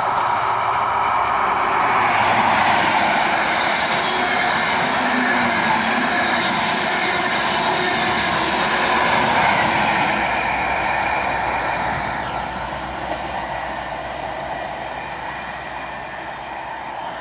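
Diesel passenger train passing close by at speed, a loud steady rush that fades away over the last few seconds as the train moves off into the distance.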